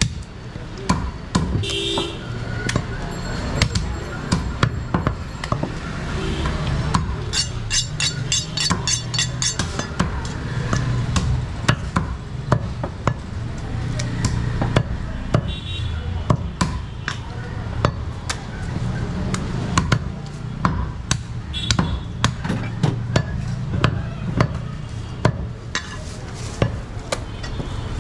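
A large butcher's knife chopping goat meat and bone on a wooden chopping block: repeated sharp chops, irregular and several a second at times, over a steady low hum.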